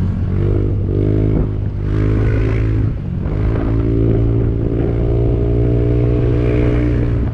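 Motor scooter engine running under throttle while riding, heard close up from the handlebars. It drops back briefly about three seconds in, then holds a steady pitch.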